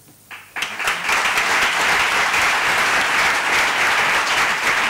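Audience applauding, breaking out about half a second in and then holding steady.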